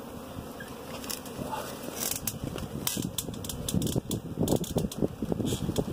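Rustling and crackling of a magnolia limb and its stiff leaves being pushed and shaken, a jumble of quick clicks that grows busier from about two seconds in.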